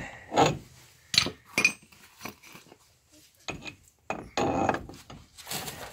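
Steel parts and hand tools clinking and knocking together at a vehicle's front wheel hub, in several irregular sharp strikes. A longer scraping clatter comes about four and a half seconds in.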